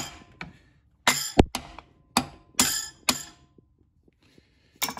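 Hammer blows on metal in a car's engine bay: sharp, ringing strikes, about six in the first three seconds, then a pause and a few more near the end.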